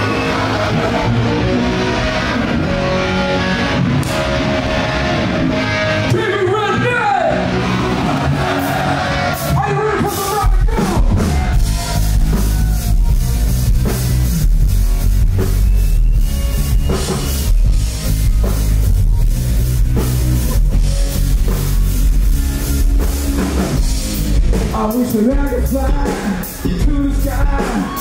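Rock-style band music with drum kit, bass and electric guitar. It opens with voices singing over the music, and about ten seconds in the drums and bass come in with a strong, steady beat.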